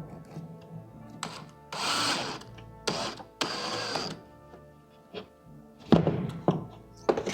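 Background music over workshop handling noise: three short scraping or rushing bursts in the first half, then two sharp wooden knocks near the end as the cabinet panels are handled and clamped.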